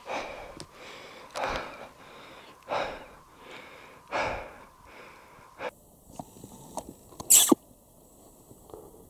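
A man's heavy, rhythmic breathing close to the microphone, one loud breath about every second and a half, as from exertion while walking. It stops abruptly after about six seconds. A single short, sharp loud noise comes near the end.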